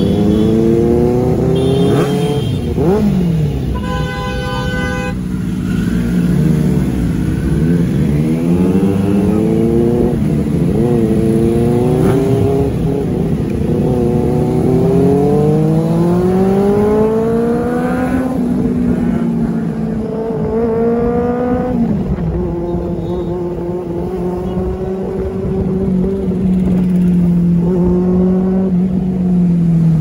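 Benelli 600i's inline-four engine through an Ixil aftermarket exhaust, revving up in long pulls and dropping back as the throttle closes or it shifts, again and again.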